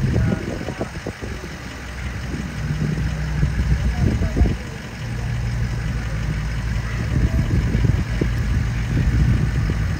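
An engine idling with a steady low hum that grows stronger about halfway through, with a few short knocks over it.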